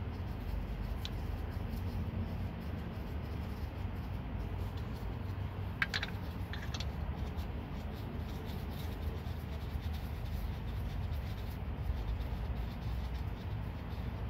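Lug nuts being spun onto the wheel studs of an alloy wheel by hand: faint metal rubbing, with a few sharp clicks about six seconds in. A steady low rumble runs underneath.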